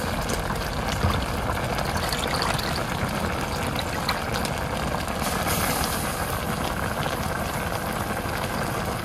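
Eggplant, green chillies and dried fish bubbling and sizzling in a wok over a wood fire, a steady hiss with a few small pops.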